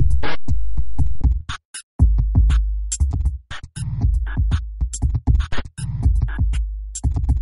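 Electronic background music with a drum-machine beat and heavy bass. It drops out briefly about one and a half seconds in, then comes back.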